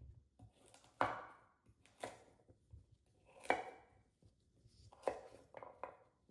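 Chef's knife cutting through raw carrots and knocking on a wooden cutting board: separate sharp chops, roughly one a second, with a few lighter taps between them.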